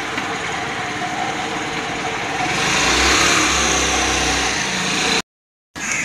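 Motor scooter engine running, then revving louder about two and a half seconds in as it pulls away. The sound cuts out abruptly for a moment near the end.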